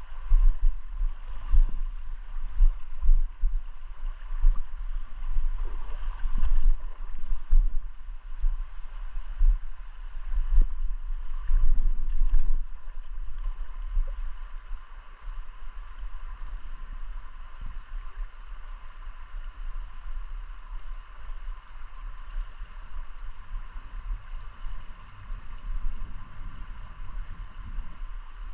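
River water flowing over rocks, a steady rushing. Irregular low buffeting on the microphone comes through the first half and eases off about halfway through.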